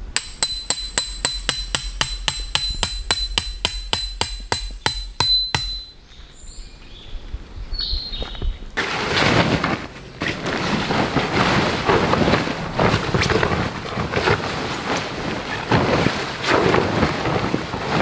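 A metal tent peg being hammered into the ground: a quick run of ringing strikes, about four a second, for some five seconds. After a short pause, tent fabric rustles and flaps heavily as it is unfolded and spread out.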